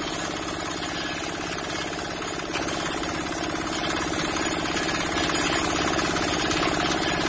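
Single-cylinder water-cooled diesel engine running steadily on a mobile concrete block making machine, with a dense, fast, rattly pulse. It gets a little louder about two and a half seconds in and again near the end.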